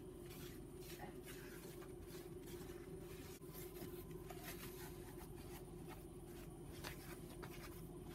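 Faint rubbing and scuffing of a cloth wiping the aluminium mating face of a BMW N54 cylinder head clean with brake cleaner, over a steady low hum.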